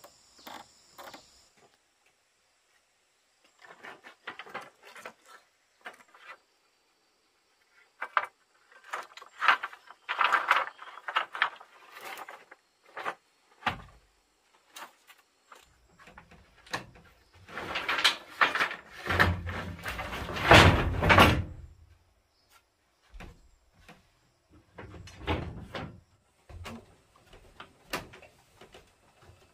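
Irregular wooden knocking and clattering as boards and wooden strips are handled and set down, with a dense, loud run of knocks about eighteen to twenty-two seconds in.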